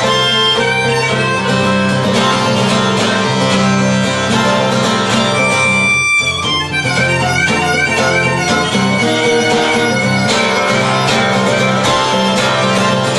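Instrumental break in an acoustic blues song. Acoustic guitar strums steadily under a melodic lead of held, wavering notes, with a brief drop about six seconds in.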